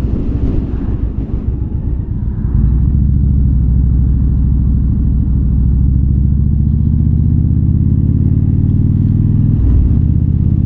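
Indian Super Chief Limited's V-twin engine running under way, heard through a mic inside the rider's helmet. Wind noise dominates at first, then about two and a half seconds in the engine note comes up louder and holds steady, with a brief dip near the end.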